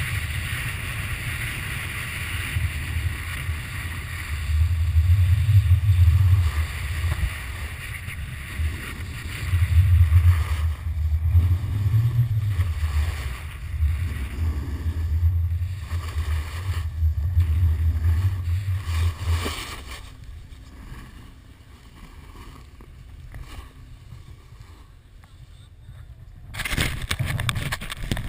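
Wind buffeting the microphone of a pole-held action camera in gusts while a snowboard slides and scrapes over snow. It goes quieter for several seconds as the rider slows, then loud wind and handling noise return just before the end.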